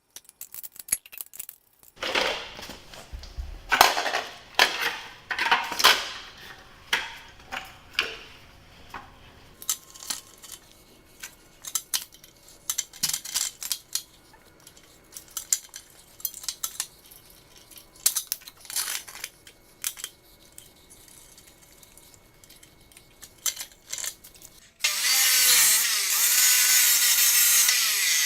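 Steel clanking and clinking as angle iron and tools are handled, many separate knocks. Near the end a power tool starts and runs loudly, its pitch dipping and rising as it works the metal.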